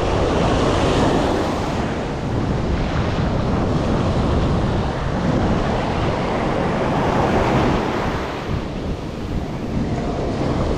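Surf breaking and washing up the sand at the water's edge, swelling louder about a second in and again around seven seconds in, with heavy wind buffeting the microphone.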